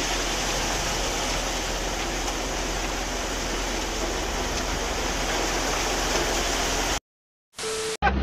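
Wet concrete pouring in a steady rush from a mixer truck's chute into a sinkhole in a road, with a steady low hum underneath. The sound cuts off suddenly about seven seconds in.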